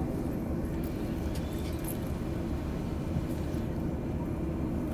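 Steady low rumble inside the cabin of a Boeing 737-800 taxiing slowly, its CFM56 engines at idle.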